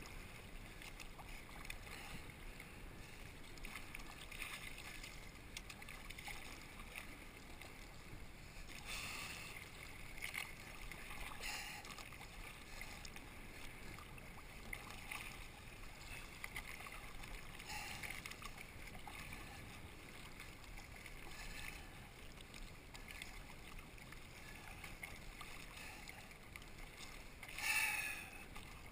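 Kayak paddle blades dipping and splashing with each stroke, with water swishing along the hull. The splashes come irregularly, every second or few seconds, and one louder splash comes near the end.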